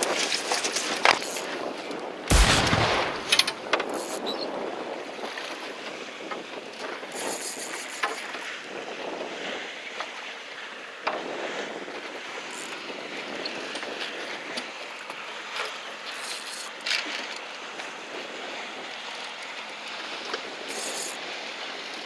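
Wind and sea noise on an open fishing boat, with a loud thump about two seconds in and a few lighter knocks and clicks after.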